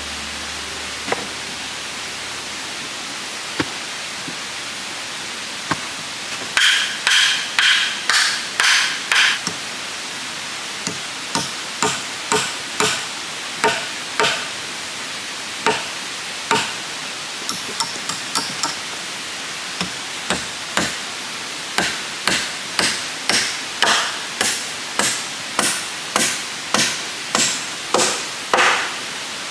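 A tool striking wood over and over, about one to two sharp knocks a second, each with a short ring. The knocks start several seconds in and go on in runs with a brief pause, over a steady hiss.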